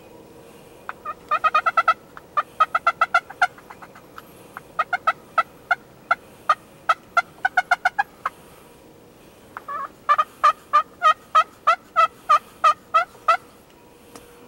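Wild turkey yelping: runs of loud, short, evenly spaced notes. There is a fast burst about a second in, then slower series at about three to four notes a second. A long run of about a dozen yelps comes near the end.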